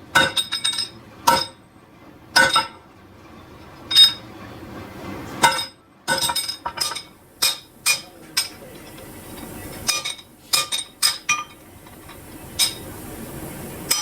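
Irregular sharp metal-on-metal clinks and knocks, each ringing briefly, coming singly and in quick clusters over a faint steady workshop hum.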